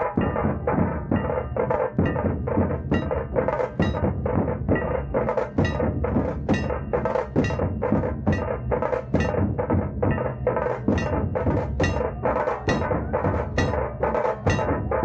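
Dhol-tasha drumming: large barrel dhols and smaller tasha drums beating a fast, even rhythm of about three strokes a second.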